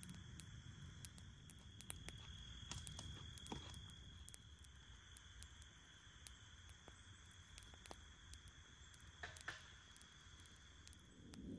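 Near silence outdoors: faint, steady high-pitched insect chirring, with scattered small clicks and a few soft knocks.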